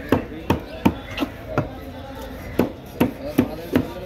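Heavy curved chopper knife hacking a cobia into chunks on a chopping block: a run of sharp chops about three a second, with a pause of about a second near the middle.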